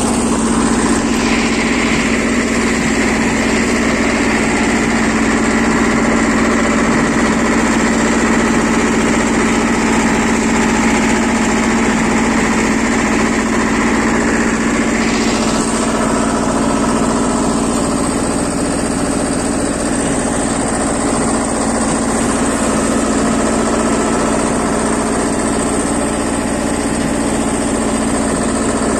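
BJR F 3800 compact tractor's Lombardini 5LD-825-2 two-cylinder air-cooled diesel running steadily while towing a box scraper that grades a dirt track. A high whine runs alongside the engine through the first half and stops about halfway through.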